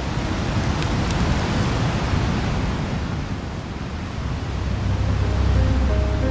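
Rushing sea noise of waves and wind that swells and eases. Music with sustained low notes fades in near the end.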